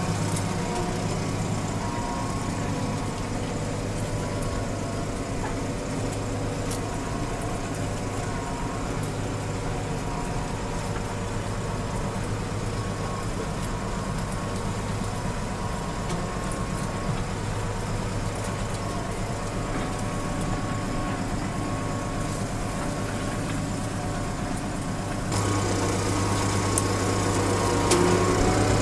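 Tractor engine running steadily under load while ploughing, heard from inside the cab. It gets louder about 25 seconds in.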